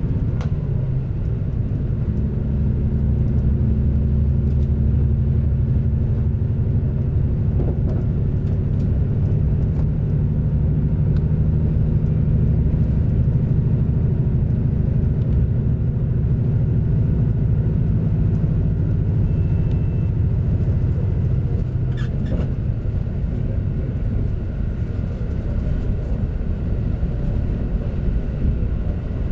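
KiHa 85 series diesel railcar's Cummins engines running under power, a steady low drone with the rumble of the train, heard from inside the front car. About three-quarters of the way through, the engine note drops away and only the running rumble remains, as the engines are throttled back.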